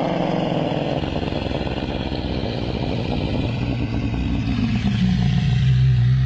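Ankylosaurus creature sound effect: a long, rough, rumbling growl that settles into a steadier low drone near the end.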